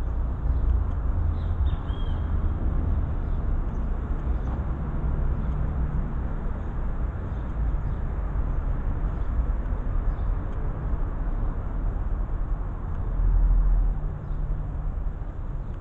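Open-air garden courtyard ambience: a steady low rumble with a bird chirping briefly about two seconds in, and the rumble swelling louder near the end.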